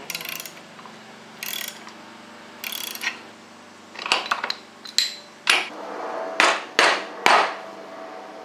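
Three short scrapes of a tool working the engine, then from about four seconds in a run of about seven sharp mallet blows on a Tecumseh lawn mower engine, knocking the sump loose from the block.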